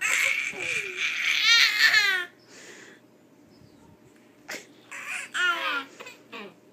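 Infant twins babbling back and forth: a long, loud, high-pitched run of baby babble over the first two seconds, then a pause, then another babbled reply with falling pitch about five seconds in.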